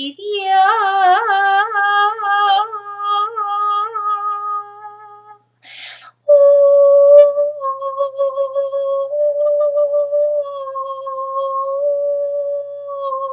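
A woman toning without words: a held sung note that wavers in pitch for about five seconds, a breath, then a long steady hum on a higher note.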